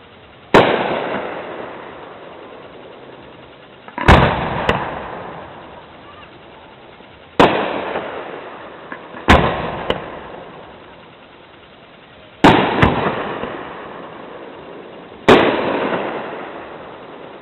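Aerial firework shells bursting overhead: six loud bangs a few seconds apart, each followed by a rolling echo that fades over a couple of seconds, with a quicker second bang after two of them.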